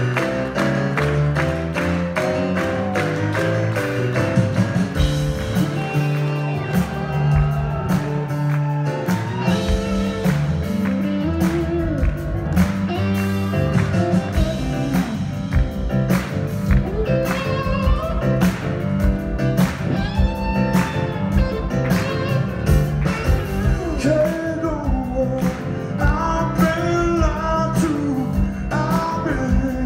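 Live band music led by a grand piano, with a steady drum beat and bass, and a man singing.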